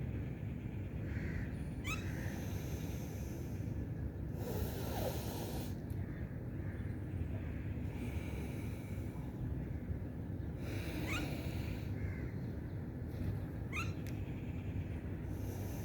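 A person breathing slowly and audibly through the nostrils in alternate-nostril breathing (Nadi Shodhan), with long hissy breaths a few seconds apart. There are three brief rising whistle-like squeaks, over a steady low hum.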